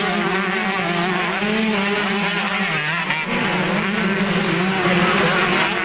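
Several 125cc two-stroke motocross bikes racing, their engines revving up and down over the jumps with overlapping, wavering pitches.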